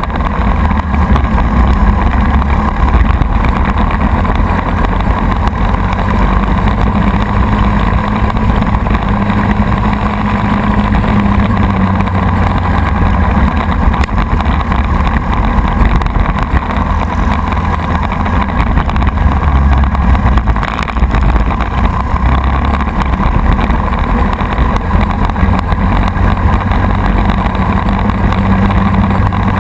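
Racing go-kart's single-cylinder Briggs & Stratton Animal four-stroke engine running hard under race load, heard on board, with wind buffeting the microphone.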